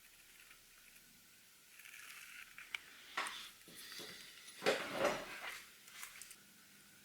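Small metal watchmaking tools clicking and scraping against watch parts in a short run of handling sounds. The loudest scrape comes about five seconds in.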